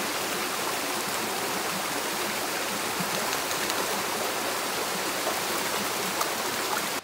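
Steady rush of a small waterfall pouring into a rocky stream pool, with a few light splashes from a dog wading through the water.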